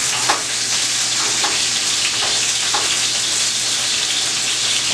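Flour-dredged chicken breast pieces frying in hot olive oil in a cast iron skillet: a steady sizzle with a few faint pops.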